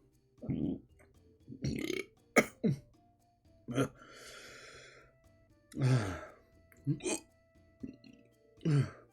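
A man hiccupping over and over: about nine short, sharp voiced gulps a second or so apart, some in quick pairs. The hiccups are brought on by the burn of a hot chili tincture.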